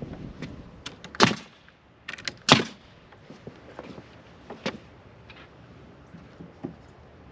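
Pneumatic nail gun firing twice into 2x4 wall framing, sharp shots about a second and a quarter apart, followed by a fainter knock later and a few light clicks.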